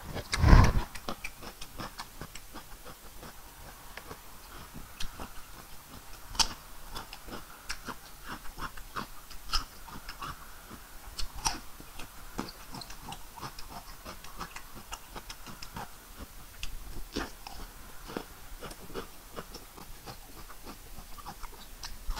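Close-up eating of a raw cucumber: a loud crunchy bite about half a second in, then chewing with many small wet clicks and mouth smacks.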